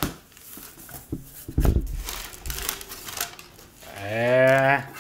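Cardboard box flaps and paper packing being handled, with rustling, clicks and a low thump about a second and a half in. Near the end comes a man's drawn-out wordless vocal sound, rising then falling in pitch, lasting under a second and louder than the handling.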